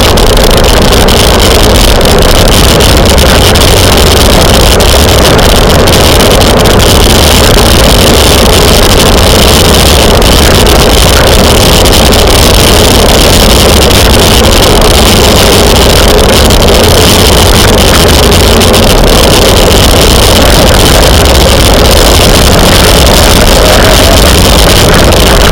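Steady wind rushing over a camera microphone on a moving bicycle, loud and overdriven, with no breaks or changes.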